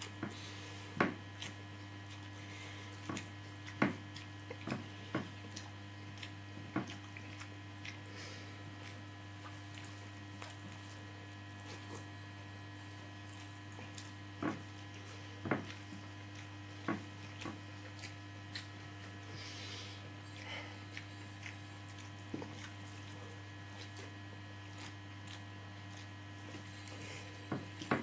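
Close-up eating sounds of rice and fried egg eaten by hand: irregular sharp smacks and clicks of chewing and fingers against the plate, over a steady low electrical hum.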